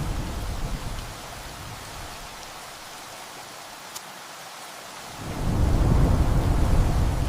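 Steady rain on a tin roof with thunder: a low rumble dies away in the first second, leaving the rain alone, and a second long rumble of thunder builds about five seconds in.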